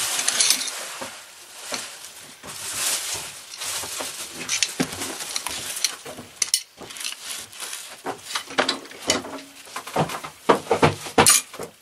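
Metal clicking and scraping as a hand tool and loose parts are worked against a disassembled Maytag twin-cylinder engine, with a quick run of sharper, louder clicks near the end.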